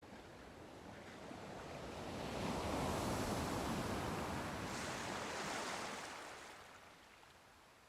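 A sea wave washing in and drawing back: a rush of noise that swells over the first few seconds and then fades away.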